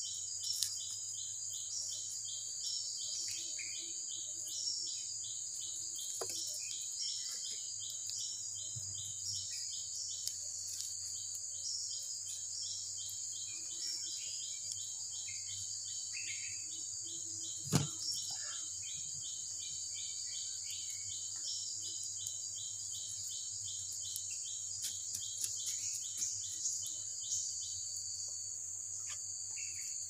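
Rainforest insect chorus: a steady high-pitched drone with a second insect pulsing rhythmically underneath, which stops near the end. There is one sharp snap a little after halfway through, plus a few faint clicks.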